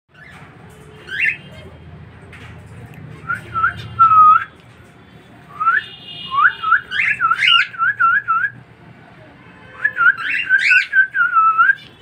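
Cockatiel whistling its song: a short note about a second in, then three phrases of clear whistled notes that rise and fall, the longest in the middle.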